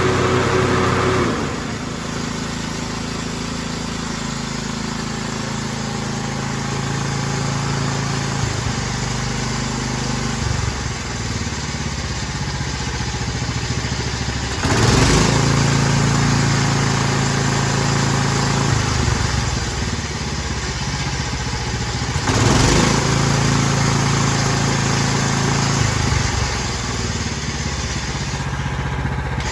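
Kohler CV14S single-cylinder engine of a Simplicity riding lawn mower running, its pitch shifting several times, with two short louder rushes of noise about 15 and 22 seconds in.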